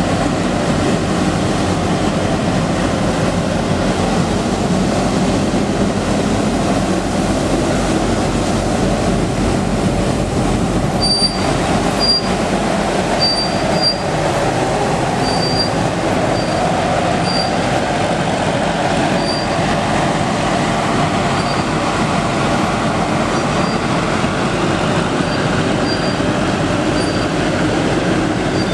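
Elgin Whirlwind MV vacuum street sweeper working: the steady loud noise of its John Deere four-cylinder auxiliary diesel and vacuum fan running, with brooms scrubbing the pavement. Short high chirps come about once a second through the second half.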